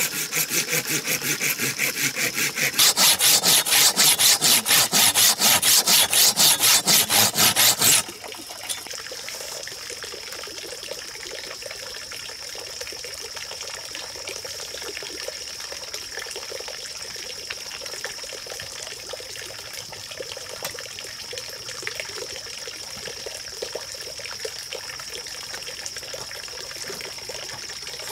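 Hand saw cutting bamboo in fast, even strokes, about four a second, growing louder a few seconds in and stopping suddenly about eight seconds in. After that comes a thin trickle of water from a bamboo pipe under a steady high hum.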